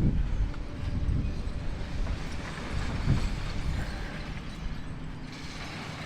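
Demolition excavator's diesel engine running steadily, with a few low knocks and clatter from debris being worked.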